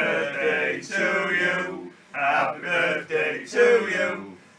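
A small group of people, mostly men, singing together in long drawn-out notes, with a short break about two seconds in.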